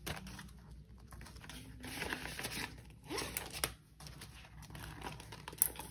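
Paper banknotes being handled and counted by hand: crisp rustling and crinkling in short spells with brief pauses.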